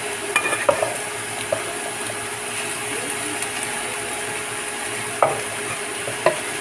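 Brown rice and vegetables frying in oil in a nonstick pan, with a steady sizzle, while a wooden spatula stirs and turns them. A few sharp taps of the spatula against the pan come near the start, about five seconds in and near the end.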